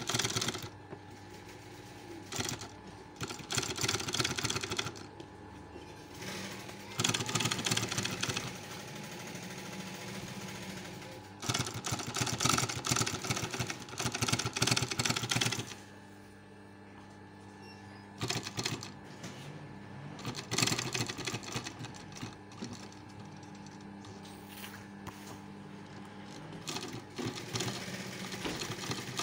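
Industrial single-needle sewing machine stitching car upholstery material in about five runs of rapid needle strokes, each a few seconds long, stopping between runs. A steady hum continues through the pauses.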